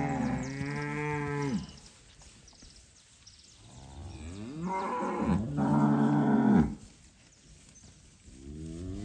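Cattle mooing: three long, drawn-out moos. One ends about a second and a half in, a louder one runs from about four to nearly seven seconds, and a third starts near the end.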